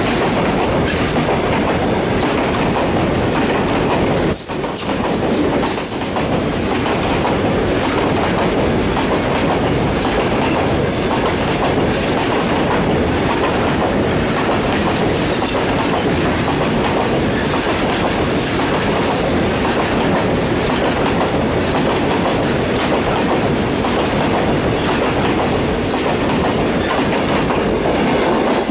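Wagons of a long, stone-laden goods train rolling past close by at speed. Their wheels clatter steadily over the rail joints under a continuous rumble.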